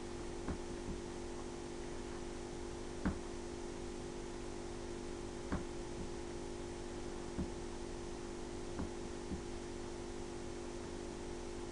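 Steady electrical hum and hiss of room tone, with a handful of faint, short clicks spaced irregularly a second or more apart.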